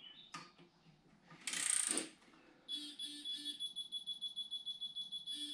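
Ratchet of a torque wrench clicking as engine bolts are tightened, with a short rushing noise about a second and a half in. From about halfway a steady high-pitched electronic beep sounds, pulsing rapidly: the kind of signal an electronic torque wrench gives when it reaches its set torque.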